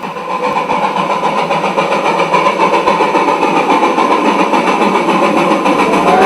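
Engine running with a quick regular pulse, growing steadily louder; a steady tone rises in near the end.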